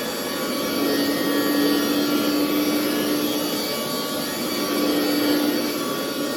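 Hoover upright carpet cleaner running, its suction motor giving a loud steady hum over a rushing noise, pulling water up out of carpet. The hum swells and dips a few times as it is worked back and forth, with the brush rubbing on the pile.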